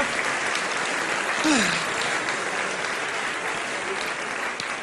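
Studio audience applauding, with one short falling whoop from the crowd about a second and a half in; the clapping slowly dies down toward the end.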